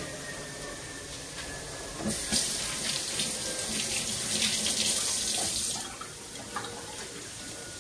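Kitchen faucet running as cherry tomatoes are rinsed under it, starting about two seconds in and shutting off about three and a half seconds later.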